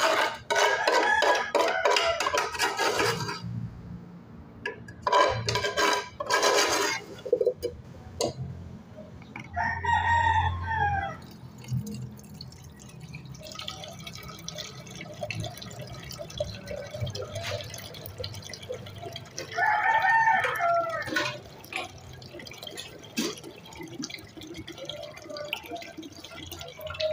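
A rooster crowing twice, about ten seconds apart, each crow falling in pitch at the end. Clinking clatter of a metal spoon and dish is heard near the start.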